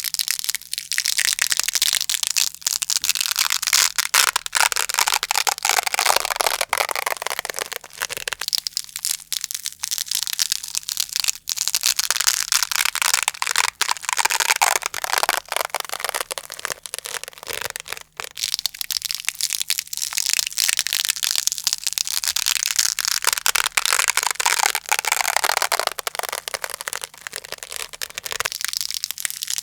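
Hook-and-loop (Velcro) fastener worked close to the microphone: dense, crunchy crackling of the hooks tearing through the loops, nearly unbroken, with a few brief lulls.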